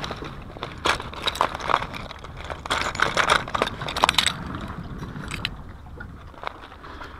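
Crinkling plastic and sharp clicks as a fishing lure is pulled out of a clear plastic lure pouch and handled, with hard clacks of the lure and pliers set down on rock. The handling noise is busiest in the first half and eases off after about four and a half seconds.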